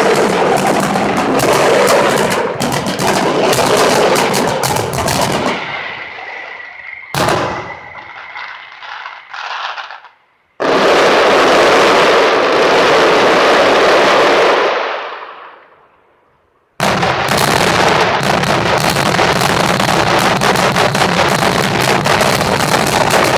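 Fireworks display: a dense, rapid run of bangs and crackle that dies away after about five seconds, leaving a faint steady whistle and one sharp bang. The noise then comes back loud twice, each time starting suddenly, and the last run is thick with rapid bangs.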